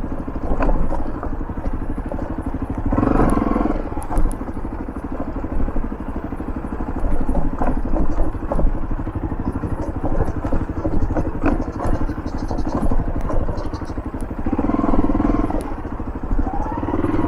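Motorcycle engine running while the bike is ridden over a rough, rutted dirt road, with frequent knocks and rattles as it jolts over bumps.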